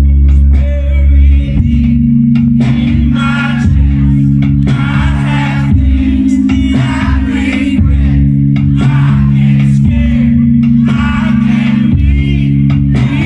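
Live rock band playing: a male singer sings over electric guitars and bass guitar, loud and steady throughout.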